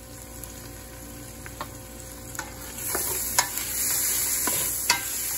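Garlic, onion and ginger sizzling in butter in a stainless steel stockpot, stirred with a spatula that scrapes and clicks against the pot about once a second. The sizzle grows louder about halfway through, with the butter starting to burn.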